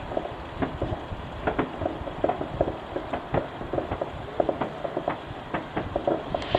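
Fireworks going off all around in the distance: irregular bangs and pops, several a second, over a low rumble.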